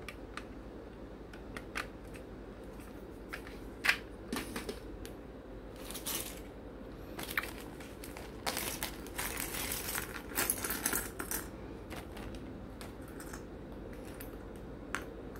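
Small hard plastic model-kit parts clicking and clattering as they are handled, with a plastic zip bag rustling as it is opened in the middle; the sharpest click comes about four seconds in.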